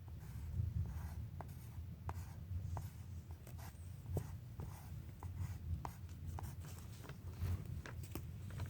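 Pencil scratching on paper in short strokes, with many small ticks and taps against the drawing surface.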